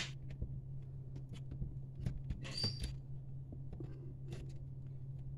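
Hands pressing and smoothing softened Blue Stuff mould putty into a clear plastic frame on a cutting mat: scattered faint clicks, taps and short scratchy rubs, one longer rub about two and a half seconds in. A steady low hum runs underneath.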